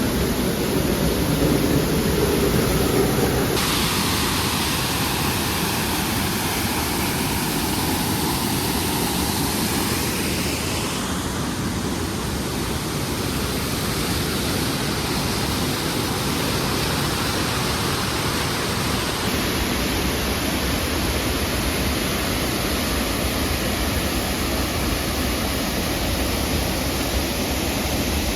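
Waterfall rushing: a steady, loud noise of falling water whose tone shifts abruptly about three and a half, eleven and nineteen seconds in.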